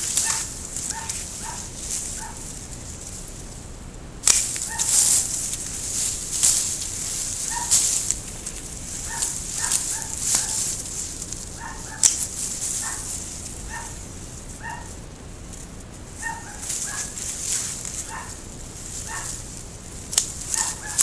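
Hand pruning shears snipping Japanese maple branches, a few sharp clicks, with the leafy branches rustling in bursts as they are handled. Short, high calls repeat throughout.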